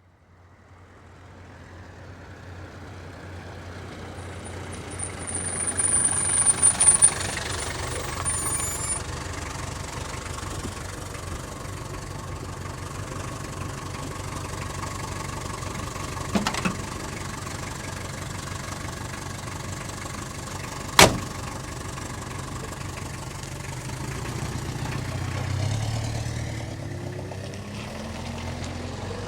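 Taxi pulling up with its engine running: the engine grows louder as it approaches, a high brake squeal sounds as it stops, then it idles steadily. About two-thirds of the way through, a single sharp clunk of a car door opening.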